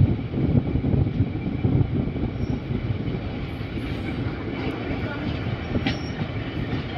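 Passenger train running along the track: a steady rumble with irregular clatter from wheels and carriages on the rails.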